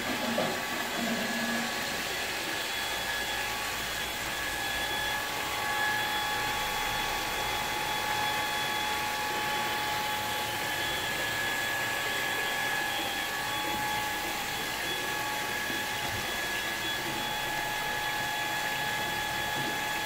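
Small electric pump running steadily with a high, even whine over a hiss, pumping freshly pressed grape juice through a hose from the press tubs into a barrel.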